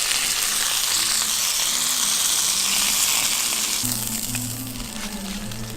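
Beef tri-tip searing in a cast-iron pan: a steady sizzle that dies down about four seconds in, with background music underneath.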